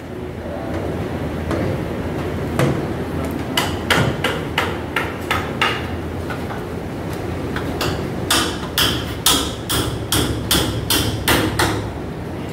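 Sharp, hammer-like knocks in two runs of about two a second, the second and longer run in the last four seconds, over a low steady background hum.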